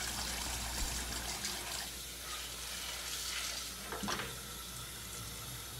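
Tap water running from a kitchen faucet into a stainless steel pot of dry pinto beans, filling the pot for pressure cooking.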